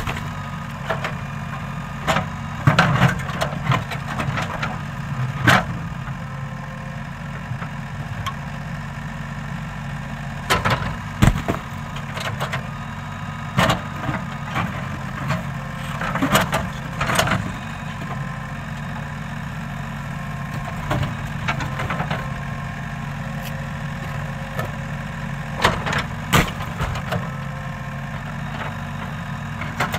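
JCB 3DX backhoe loader's diesel engine running steadily while its backhoe bucket digs out stones, with sharp knocks and clatters of the bucket and rocks at irregular moments throughout.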